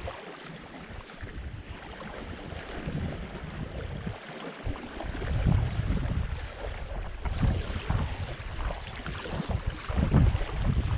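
Wind buffeting the microphone in uneven gusts, with a steady outdoor hiss.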